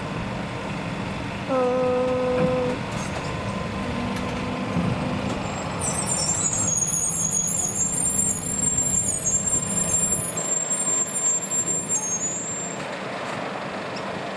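A passing rail vehicle rumbling. It gives a short horn note about a second and a half in, followed from about six seconds by a high-pitched squeal lasting about seven seconds.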